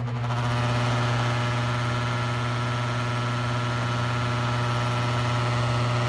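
Attic fan running after being switched on: a loud, steady motor hum under a rushing of air, coming up to full speed in the first second and then holding steady.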